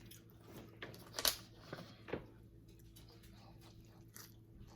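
Close-up eating sounds: soft, wet chewing with small mouth clicks, and one sharper crunch about a second in.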